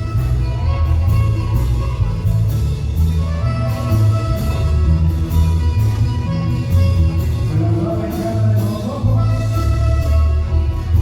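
Live Latin American band music with a heavy bass and a steady drum beat under a sustained melody.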